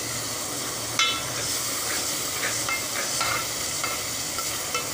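Steel ladle stirring ridge gourd curry in a steel pot, clinking and scraping against the pot with one ringing knock about a second in and lighter clicks after, over the steady sizzle of the cooking.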